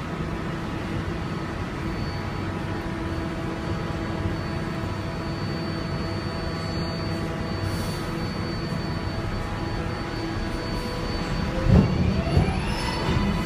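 R142A subway train standing at a platform, its equipment giving a steady hum with several held tones. About twelve seconds in there is a loud thump, and the train starts to pull away with the whine of its traction motors rising in pitch.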